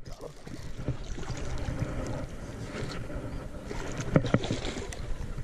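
Wind rumbling on the microphone, with light water splashing and sloshing.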